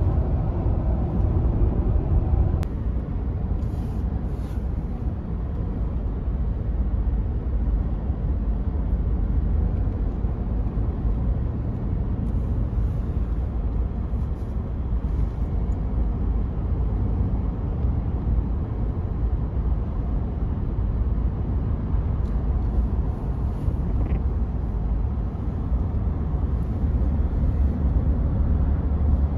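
Steady road noise inside a moving vehicle's cabin: a low rumble of tyres and engine while driving.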